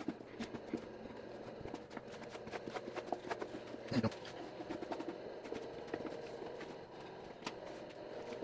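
Hand paint scraper working through chemically softened, bubbled paint on a wooden box: a run of irregular scrapes and small clicks, with a duller thump about four seconds in.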